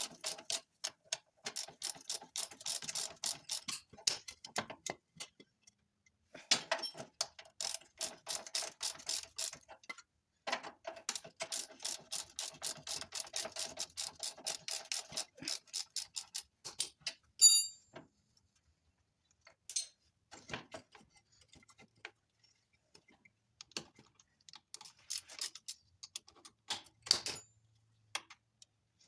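Ratchet wrench clicking in fast runs as it is worked back and forth, in three long stretches. About halfway through comes one loud, ringing metal clank, followed by scattered clicks and another clank near the end.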